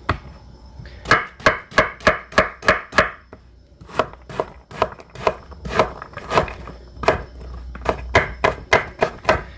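Chef's knife dicing an onion on a wooden cutting board: a steady run of cuts, each blade stroke tapping the board, roughly three or four a second, with a brief pause about three seconds in.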